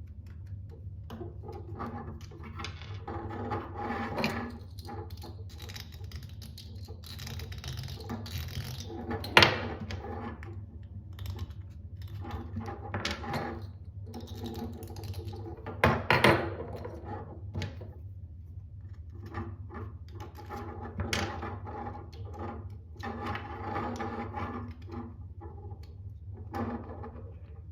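Hands handling small 3D-printed plastic knife parts: irregular rubbing and rattling with a few sharp clicks, the loudest about nine and sixteen seconds in, over a steady low hum.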